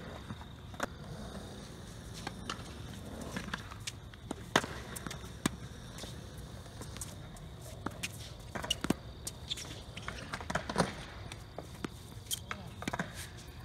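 Tennis ball being struck by racquets and bouncing on a hard court, with players' footsteps: sharp single pops spaced a second or more apart, the loudest about four and a half seconds in.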